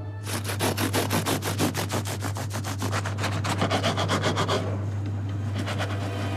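Knife sawing through the crisp, caramelised crust of a baked rolled focaccia loaf: a fast, even run of rasping strokes that stops about four and a half seconds in.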